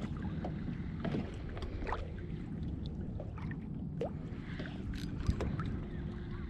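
Water lapping against a kayak's hull: many small drips, plinks and splashes over a steady low rumble.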